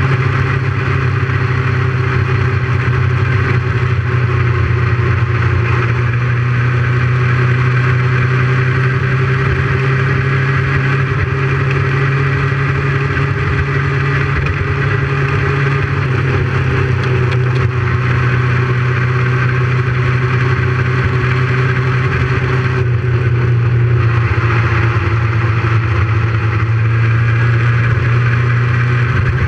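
Motorcycle engine running at a steady cruise, heard up close from a camera mounted on the bike, with an even pitch and one brief easing of the throttle about three-quarters of the way through.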